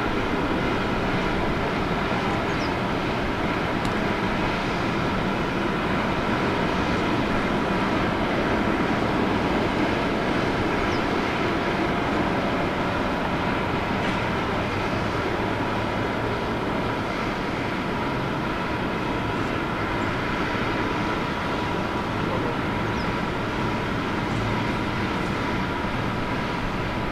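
Jet airliner engines running steadily: an even rush of noise with a faint whine of steady tones above it.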